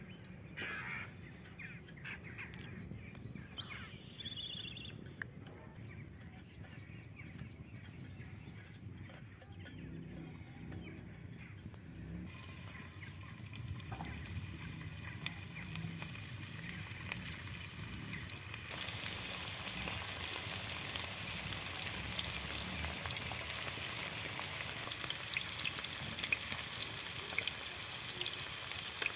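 Crumb-coated chicken pieces deep-frying in hot oil in a kadai, a steady sizzle that starts about twelve seconds in and grows louder about nineteen seconds in as more pieces go into the oil. Before the frying, a bird calls briefly.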